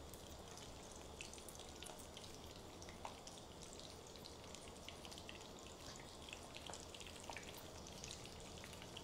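Spring rolls deep-frying in hot oil over medium heat, with a faint, steady sizzle and many small, quick pops and crackles.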